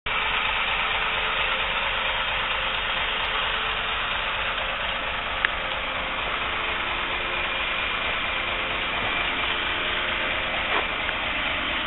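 Fire truck engine idling steadily, with one short click about five and a half seconds in.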